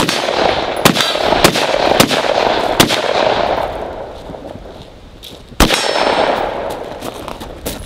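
Rifle shots on steel targets with the steel clanging: four sharp reports in quick succession about a second apart, a pause, then one more near the end.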